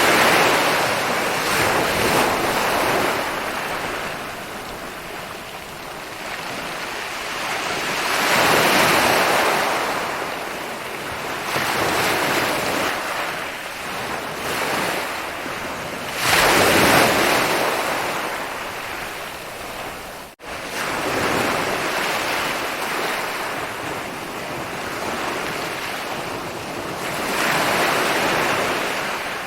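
Ocean waves rolling in and breaking on a beach, with a surge of surf swelling and fading every few seconds. The sound cuts out for an instant about two-thirds of the way through.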